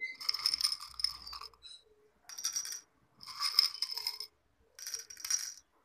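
Small colourful decorative stones clinking and rattling against glass as they are picked out of a glass bowl by hand and dropped into a small shot glass, in four short bursts.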